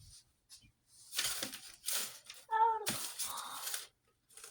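Desk items being handled, with several short rustling, scraping noises about a second apart and a brief vocal sound in the middle.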